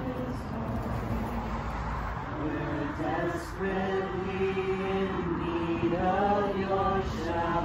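A small group singing a slow Christmas song with reworded lyrics, holding long notes, to an acoustic guitar.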